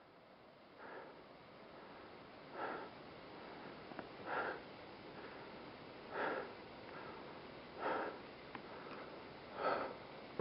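A person's breathing close to the microphone: short, even breaths about every two seconds over a faint steady hiss.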